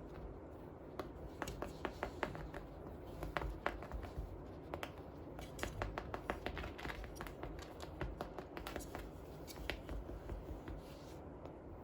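Irregular light clicks and taps, several a second in clusters, over a low steady hum.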